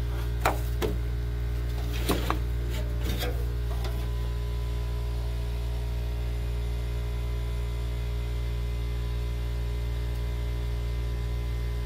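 A steady low hum, with a few light knocks and clatters in the first four seconds as painted car fender panels are handled and swapped.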